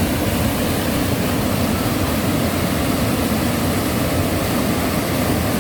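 Bomburu Ella waterfall: a steady, loud rush of falling water heard close up, deep and even with no breaks.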